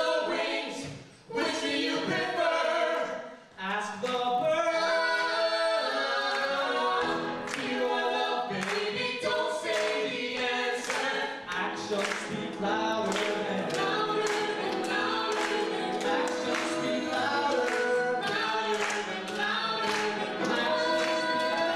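A group of voices singing a show tune in harmony, choir-style, over a steady percussive beat, with a couple of brief breaks in the first few seconds.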